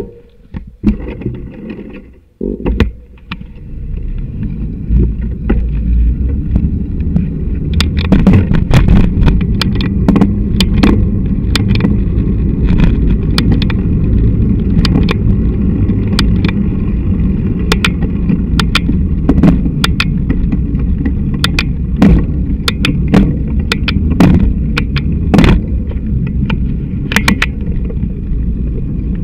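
Mountain bike ridden with a camera on an uncushioned handlebar mount: a steady low rumble of road vibration and wind, with frequent sharp knocks and rattles as the bike jolts over bumps. A few knocks come first, then the rumble builds over the first few seconds as the bike gets moving.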